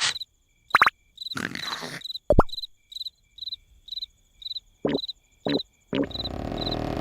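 Cricket chirping sound effect, a high chirp repeating about twice a second, broken by a few short cartoon blips; a steady low rushing noise comes in about six seconds in.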